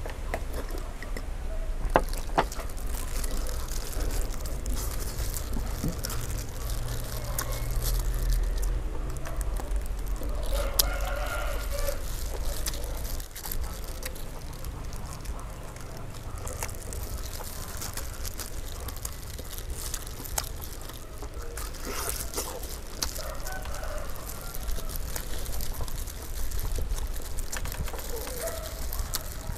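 Roosters crowing and chickens clucking in the background several times, over a low steady rumble. Close by, scattered clicks and rustling from hands in plastic gloves tearing roast chicken apart and from chewing.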